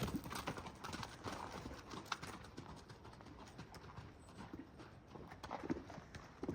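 Hoofbeats of several horses running and playing loose, an irregular patter of thuds that grows louder near the end.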